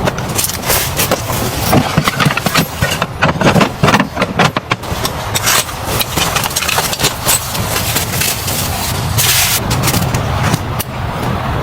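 A run of sharp knocks and clatters over a steady low rumble, giving way in the second half to steadier rough noise, with a brief bright rush about nine seconds in.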